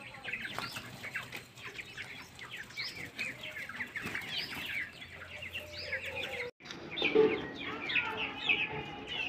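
A flock of desi pullets clucking and cheeping: many short, high, overlapping calls. After a brief break about two-thirds of the way through, the calls come louder, with some lower clucks.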